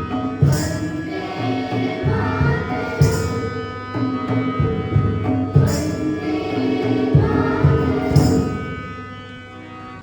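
Music: sustained chords over drum beats, with a bright jingling stroke about every two and a half seconds, fading out near the end.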